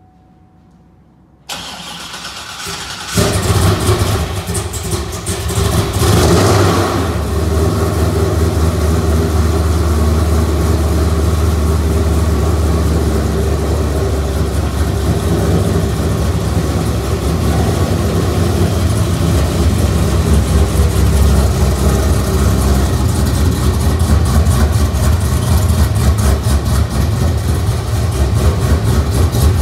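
Freshly built stroker V8 in a C6 Corvette on its first start: the starter cranks it over about a second and a half in, it catches about a second later, revs up briefly, then settles into a steady idle.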